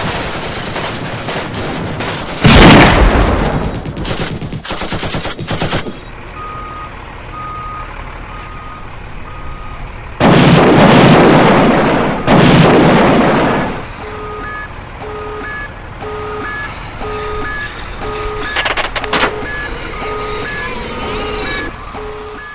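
A toy army vehicle's electronic sound module plays canned battle effects. In the first six seconds there is rapid gunfire-like crackle with a loud blast about two and a half seconds in. Then comes a steady repeating beep, broken by two loud blasts, and near the end a beep that alternates between a low and a high tone.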